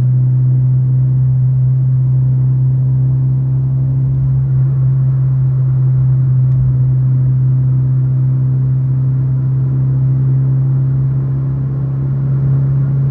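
Loud, steady whistle-like drone inside a 2011 Fiat Uno Way's cabin at over 100 km/h: one unchanging low tone with fainter overtones over road noise. The noise comes only with the car in gear above 100 km/h and stops when the clutch is pressed.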